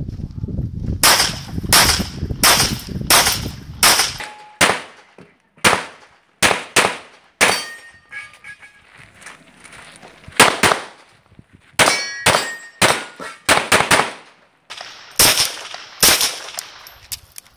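Pistol shots fired in fast strings of two to six, with short pauses between strings. Steel targets clang and ring briefly when hit.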